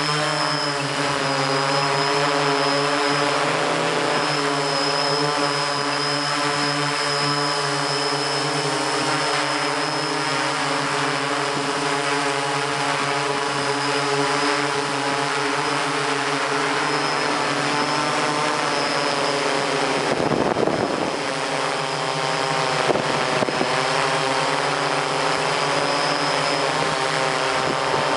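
A MikroKopter hexacopter's six electric motors and propellers whir steadily, heard close from the camera mounted on the craft: a stack of steady tones. About twenty seconds in, a brief rush of noise rises under the whir.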